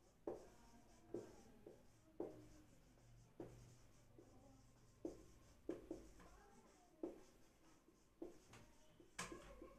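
Marker pen writing on a whiteboard: faint short strokes, about one a second, with small pauses between words.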